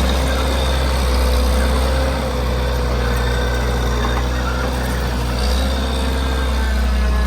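Case 445CT skid steer's diesel engine running steadily under work, with a thin whine that wavers slightly in pitch over a deep hum.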